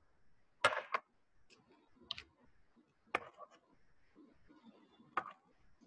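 A few sharp, separate clicks, four in all and seconds apart, over faint background noise.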